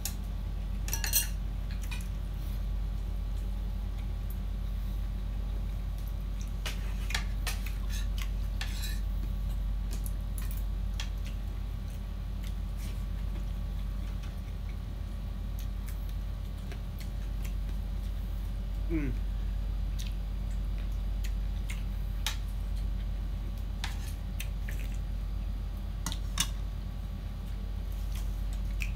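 Metal spoons clinking now and then against ceramic plates and bowls during a meal, a sharp clink about a second in the loudest, over a steady low hum.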